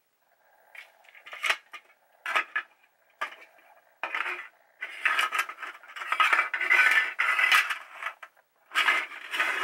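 Hollow 3D-printed plastic fan ducts being set down, knocked together and slid across a desk. A few separate knocks come first, then a longer stretch of clattering and scraping from about four seconds in.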